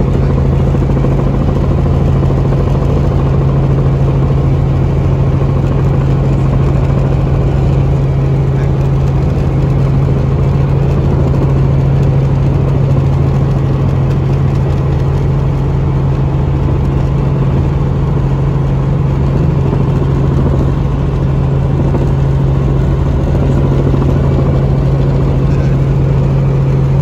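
Helicopter in flight: steady rotor and engine noise with a strong, unchanging low drone.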